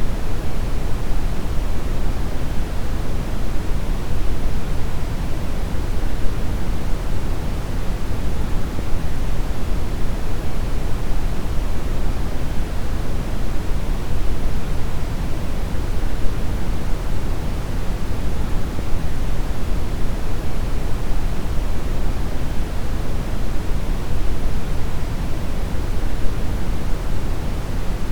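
Steady brown noise: a deep, even rushing hiss, strongest in the bass and fading toward the treble, with no change throughout.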